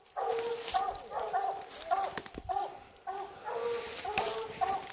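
Coonhounds barking at a tree, short barks repeating over and over from more than one dog: the hounds have a raccoon treed.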